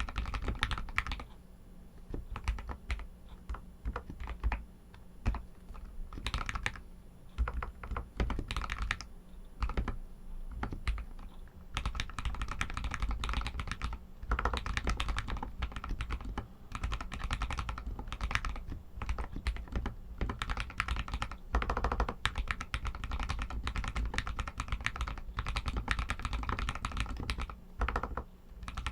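Typing on an RK61 mechanical keyboard with Outemu Red linear switches: an irregular patter of keystrokes, sparser for the first twelve seconds or so, then faster and denser.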